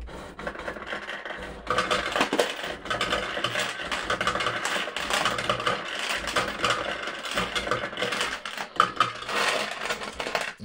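'Bully for You' fruit machine paying out: the coin hopper running, with a continuous clatter of coins dropping into the payout tray that gets louder a little under two seconds in.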